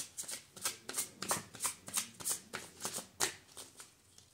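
A deck of tarot cards being shuffled by hand: a run of short papery strokes, about three a second, that thins out near the end.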